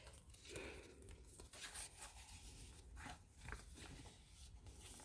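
Faint rustling and rubbing of paper as the pages of a handmade junk journal are turned and handled, a few soft brushes scattered over a near-silent room.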